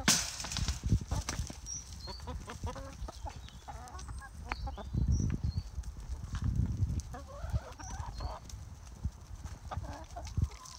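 A mixed flock of backyard hens clucking, with many short, broken calls overlapping from several birds.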